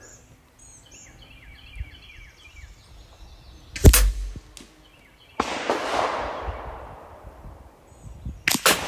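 Shots fired in turn from a .22 rimfire rifle and a PCP slug air rifle: a sharp crack about four seconds in, another shot about a second and a half later whose sound fades over a couple of seconds, and another crack near the end, which also fades. Birds chirp faintly in the first few seconds.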